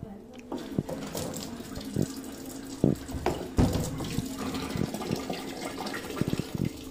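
Eureka Forbes Aquasure Xpert RO water purifier running, with a steady hum and water rushing through it. Sharp knocks and clicks come as the tubing and fittings at its base are handled.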